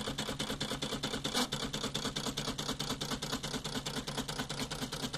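Homemade dot-matrix printer built from CD drive parts printing: rapid, even ticking, about eight a second, as the pen mechanism made from a CD drive's tray-opening motor taps the pen down dot by dot while the stepper-motor sleds step the paper and pen along.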